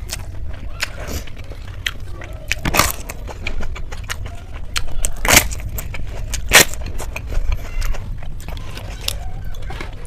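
Noodles being slurped and chewed close to the microphone: wet clicking mouth sounds throughout, with three loud slurps, about three seconds in, past five seconds and around six and a half seconds.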